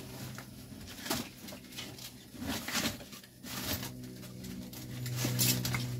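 Items being handled and shifted while rummaging, a few light knocks and rustles over a steady low hum.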